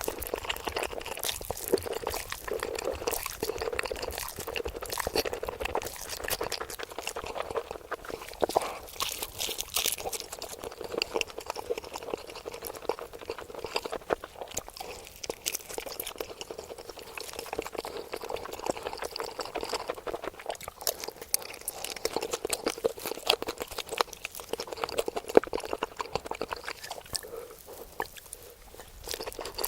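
A person eating close to the microphone: wet chewing and slurping, full of small crackly clicks, going on without a break.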